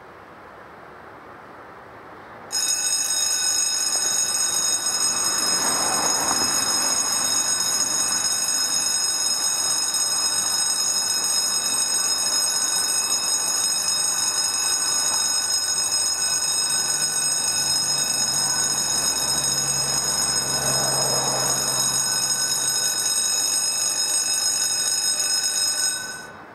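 Level crossing warning signal sounding: a loud, steady electronic ringing that starts abruptly about two and a half seconds in and cuts off just before the end, warning that a train is approaching.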